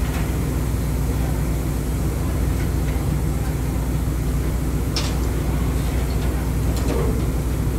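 Steady low mechanical drone of heavy machinery, with a constant hum and a sharp click about five seconds in.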